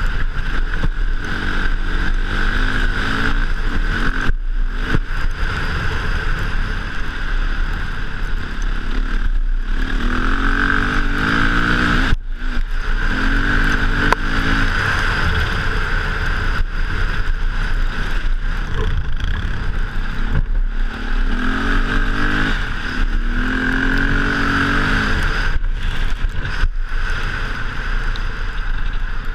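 KTM dirt bike engine running under way, its pitch climbing again and again as the throttle is opened, with short breaks where the throttle is shut. Wind rushes steadily over the microphone.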